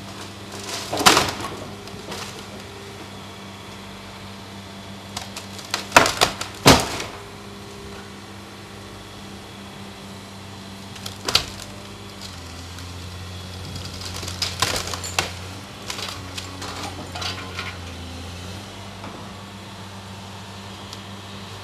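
Caterpillar excavator's diesel engine running steadily while its demolition grapple tears at a building's roof framing. Sharp cracks and crashes of breaking structure come about a second in, twice around six to seven seconds, once near eleven seconds, and in a cluster around fifteen seconds. The engine note grows louder under load for several seconds in the second half.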